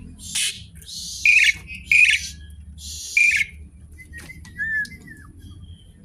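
Asian pied starling (jalak suren) calling: about four loud, harsh, scratchy calls in the first few seconds, then a few faint thin whistled notes.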